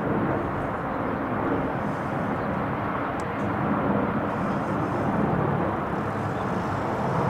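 Airbus A321-211 airliner flying overhead, its twin CFM56 turbofan engines giving a steady jet rumble.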